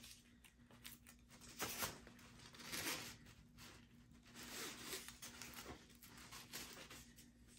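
Faint, scratchy rasps of heat-resistant tape being peeled off a hot, freshly sublimated metal bottle opener, in several short strokes, over a thin steady hum.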